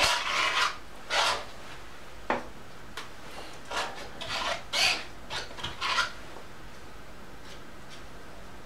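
Palette knife scraping oil paint across a canvas in a run of short strokes, about ten in the first six seconds, after which the scraping stops.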